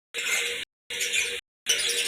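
Lovebirds chattering in harsh, scratchy bursts, three short bursts with silent gaps between them.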